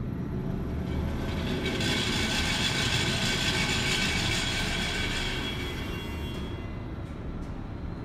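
KONE traction elevator car travelling up its glass hoistway: a steady low hum, with a rushing hiss that swells about two seconds in and fades out around six seconds as the car arrives.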